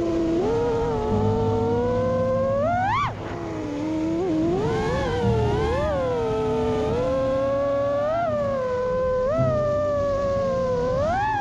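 FPV freestyle quadcopter's brushless motors (ImpulseRC Apex HD on Mr. Steele 2345kv motors) whining, the pitch rising and falling with the throttle, with a sharp rising punch about three seconds in and another near the end.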